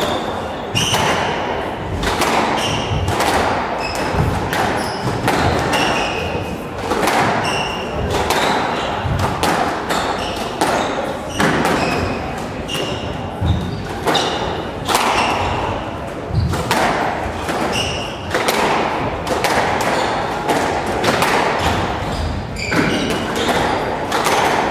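A squash rally: the ball is hit by the rackets and thuds off the court walls in quick succession, about one impact every half second to a second, with court shoes squeaking on the wooden floor between shots.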